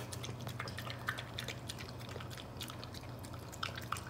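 A puppy eating from a stainless steel bowl: a run of small, irregular wet clicks and smacks as it chews and laps kibble softened with water and mixed with rice. A low steady hum runs underneath.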